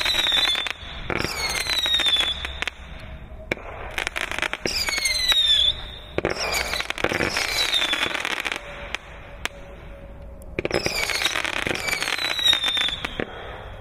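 Fireworks going off: high whistles that fall slightly in pitch, each followed by a rapid crackle of small bangs, several times over.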